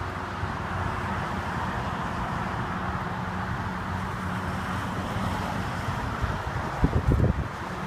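Wind buffeting the microphone over a steady low hum, with a few heavier gusts near the end.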